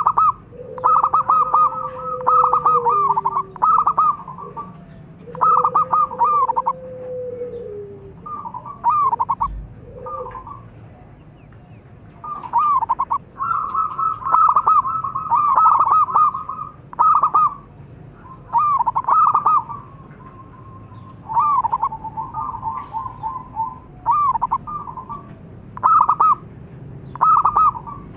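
Zebra dove cooing: repeated phrases of quick, stuttering coos, some short and some long and rolling, coming again and again with brief gaps. A lower drawn-out note sounds twice in the first eight seconds.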